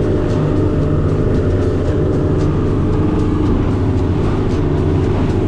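Motorboat engine running steadily with an even low hum.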